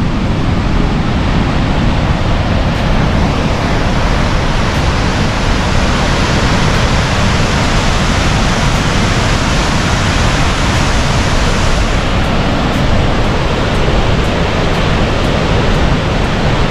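The 90-foot White River Falls sending up a loud, steady rush of falling water.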